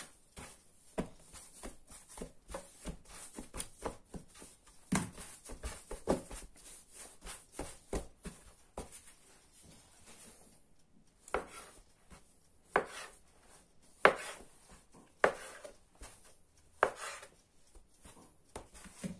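Kitchen knife cutting soft yeast dough into pieces on a wooden board, the blade knocking on the board. Light taps and handling of the dough early on; in the second half five or six sharper knocks about a second and a half apart.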